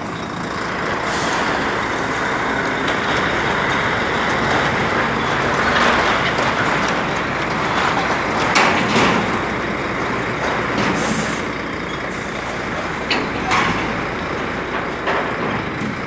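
Heavy truck running steadily at close range. A few short sharp hisses or knocks stand out in the middle and near the end.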